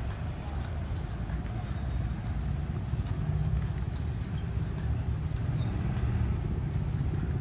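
Steady low rumble of motorcycle and road traffic, with a brief high chirp about four seconds in.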